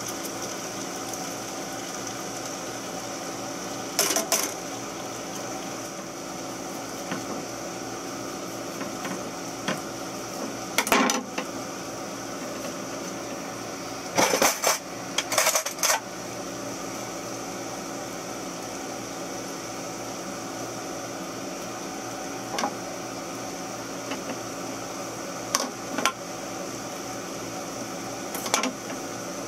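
Kitchen utensils, a knife and dishes clinking and knocking on a galley counter and cutting board, a handful of short clatters with a busy cluster about halfway through. A steady hum and hiss runs underneath.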